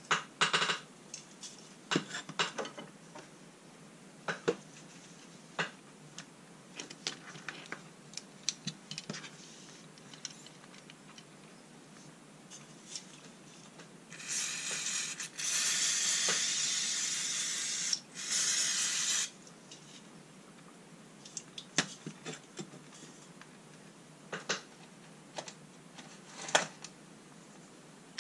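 Aerosol brake cleaner spraying in three hissing bursts in the middle, the longest about two and a half seconds. Scattered light knocks and clicks come before and after it.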